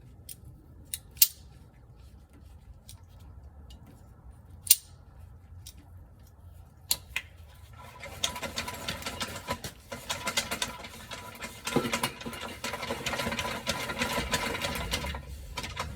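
Metal parts and tools clinking a few times, then, from about halfway through, a steady run of rapid mechanical clicking from a tool working a fastener on a transmission, backing it off to take the tension off the band.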